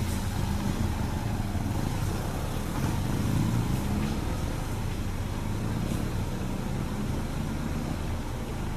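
A motor vehicle's engine running: a low, steady rumble with a slight waver in pitch.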